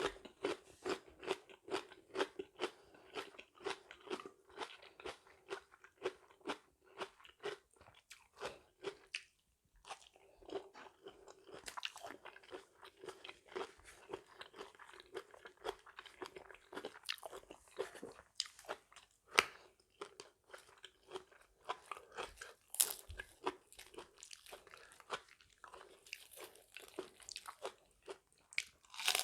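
Close-up chewing and crunching of a mouthful of spicy mixed-seafood salad: a steady stream of quick, wet crunches and bites, with a few louder crunches in the second half.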